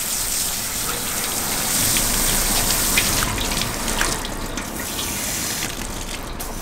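Garden hose pistol-grip spray nozzle spraying water in a steady hiss with a few faint ticks, rinsing loose scales off a freshly scaled fish on a wooden cutting board.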